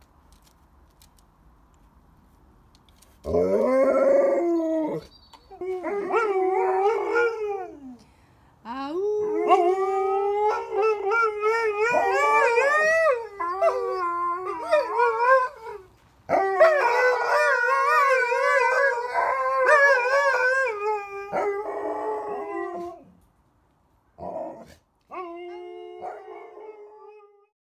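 Siberian husky howling: after about three seconds of quiet, a run of long, wavering howls with short breaks, then a few shorter calls near the end.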